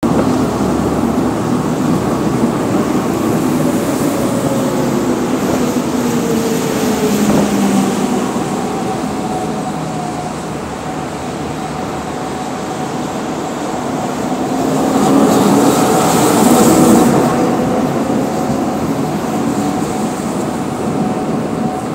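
Zürich tram running along its rails, heard from inside: a steady rolling rumble with whining tones that glide up and down in pitch as it changes speed, growing louder for a couple of seconds a little past the middle.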